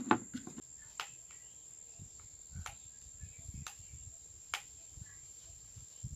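Scattered small clicks and light knocks as a thin metal tool and hands work the wooden headstock of a handmade carnaúba-stalk mini guitar while its strings are being fitted. The clicks come roughly once a second, over a steady high-pitched thin tone.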